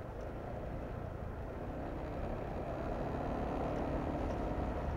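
Motorcycle riding along a wet road: a steady low rumble of wind and road noise with a faint engine hum, growing slightly louder over the few seconds.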